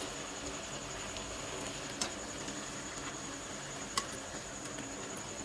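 Bhatura deep-frying in hot oil in a steel kadhai: a steady sizzle and crackle of bubbling oil. Two sharp clicks, about two and four seconds in, come from the slotted spatula touching the pan, and a faint steady high tone runs underneath.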